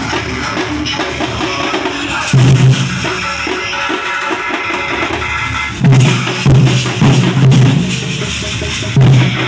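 Loud drumming music with a fast, continuous beat. Louder, deeper stretches of heavy drumming come in about two seconds in and again from about six seconds.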